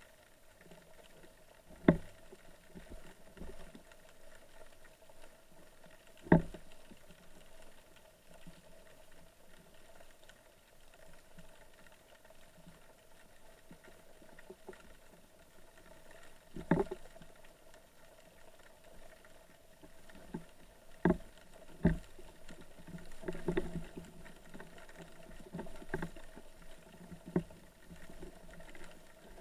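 Muffled underwater ambience recorded through a camera's waterproof housing, with a faint steady hum and several sharp knocks, the loudest about two and six seconds in and a few more in the second half.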